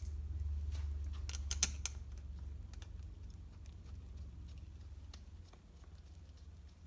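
Light clicks and taps of small metal hardware, such as bolts and washers, being handled, with a cluster of sharper clicks about a second in. A low steady hum sits underneath and fades toward the end.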